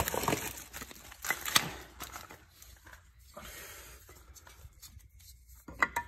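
Rustling and scuffing as the phone camera is handled and moved, with knocks in the first two seconds. A few sharp clicks come near the end as hands work at the brake caliper.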